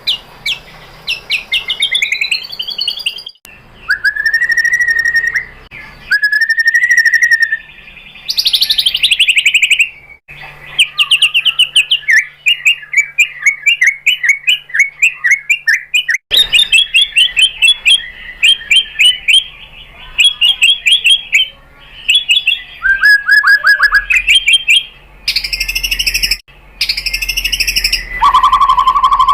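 White-rumped shama (murai batu) singing loudly: a run of varied phrases of fast trills, rattling chatters, swooping whistles and clear notes, in short segments that change abruptly.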